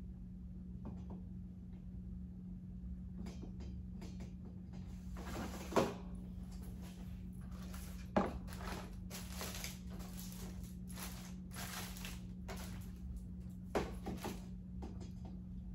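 Objects being handled and moved about: scattered rustling and clatter with three sharper knocks spread through, over a steady low hum.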